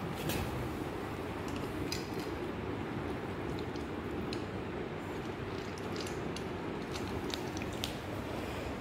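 Siberian husky eating dry kibble from a steel plate: scattered short crunches and clinks against the plate over a steady low background noise.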